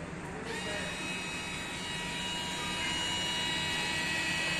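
Bosch GO cordless screwdriver's small motor and gearbox running with a steady whine, driving a screw; the whine starts suddenly about half a second in.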